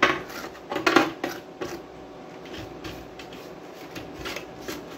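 Small brush scrubbing over an amplifier circuit board in short, scratchy strokes, busiest in the first second or so, with light knocks from handling the board and its metal chassis.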